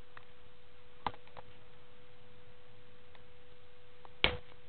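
Two sharp knocks, one about a second in and a louder one near the end, over a steady faint high hum.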